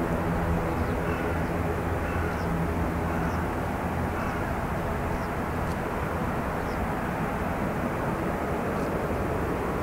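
ATR 42 turboprop engines running as the airliner taxis, a steady drone. A low hum in it fades after about three and a half seconds.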